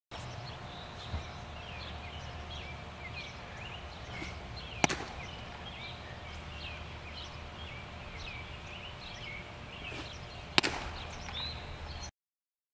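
A baseball smacking into a leather glove twice, about six seconds apart: sharp single pops that stand out over the ambience. Birds chirp throughout, over a low steady hum.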